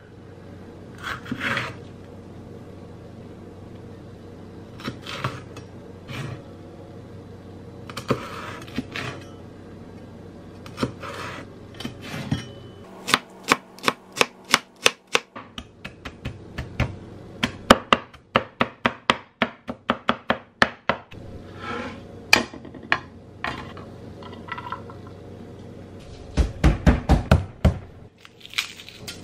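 Chinese cleaver cutting a red pepper on a wooden cutting board: single slices spaced out at first, then from about halfway in some eight seconds of quick, even chopping, about four strokes a second, as the pepper is diced. Near the end comes a short burst of heavier, deeper knocks as the cleaver's handle is pressed down on a garlic bulb to break it into cloves.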